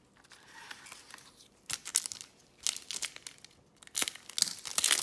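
Plastic trading-card pack wrapper crinkling as it is handled, then torn open across the top with a few quick, sharp rips, loudest near the end.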